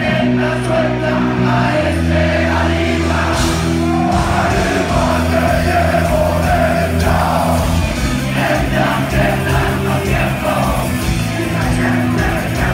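Live punk rock band playing loud: electric guitars, bass and drums with a singer's vocals over them.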